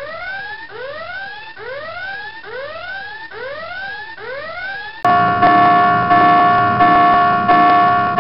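Warship battle-stations alarm: a whooping tone that rises in pitch, repeated about once a second for five seconds. It then switches abruptly to a bell-like ringing alarm that pulses in quick strokes about twice a second.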